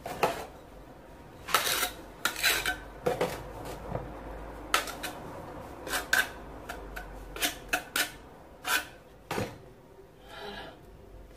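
A metal tool scraping and clinking against a terracotta floor tile as mortar is spread thickly onto it, in a dozen or so irregular sharp scrapes and knocks.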